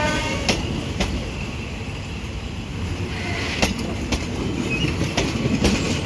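Passenger coaches of a Thai ordinary train rolling past close by: a steady rumble broken by sharp, irregular clacks of the wheels over rail joints. Brief metallic wheel squeals come near the start and again about three seconds in.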